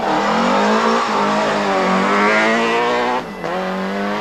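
Peugeot 306 Group A rally car's 2-litre four-cylinder engine under hard acceleration, its note climbing slowly in pitch. A short break comes about three seconds in, then the engine pulls on again.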